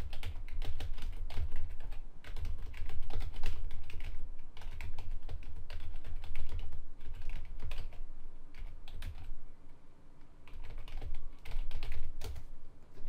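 Typing on a computer keyboard: a fast, uneven run of key clicks, with a brief pause about three-quarters of the way through before the typing resumes.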